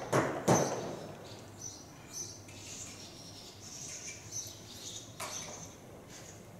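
A horse being led at a walk on arena sand, with a thud about half a second in, then soft steps and faint high chirps of small birds scattered through.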